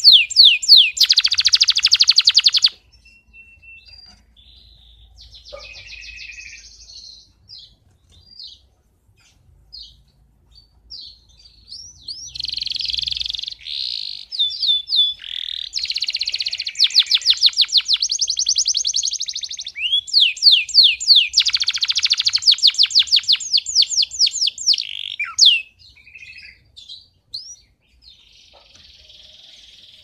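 Male canary singing: long phrases of loud, rapid trills and sweeping whistled notes, broken by stretches of softer scattered notes. Near the end the song stops and a faint steady hiss remains.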